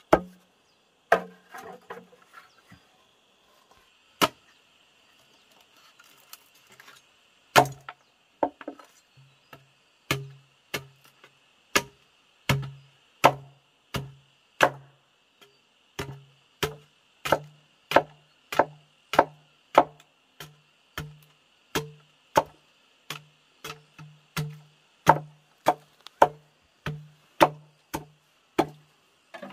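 Wood being chopped with a blade in repeated sharp strokes. There are a few strokes at first, a pause of about three seconds, then a steady run of about two strokes a second.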